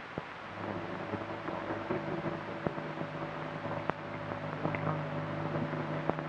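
A steady low hum with a few faint clicks and rustles as a metal duty-officer's gorget on a ribbon is handled and fastened at the neck.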